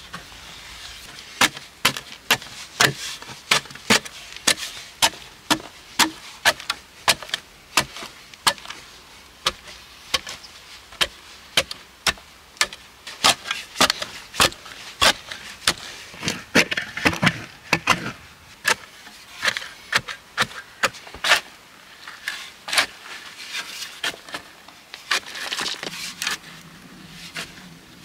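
Small shovel chopping into hard, dry, compacted earth and scraping it loose, in repeated sharp strokes about two a second, with clods crumbling and sliding.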